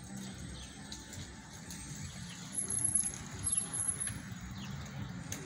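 City street ambience: a low, steady hum of distant traffic with small birds chirping now and then in the roadside trees.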